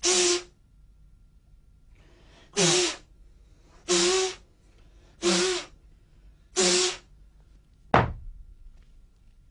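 Five short, forceful exhalations by a martial artist doing combat breathing, each a loud hiss with a low hum under it, about one every second and a half. About eight seconds in, a single sharp thud with a short fading tail.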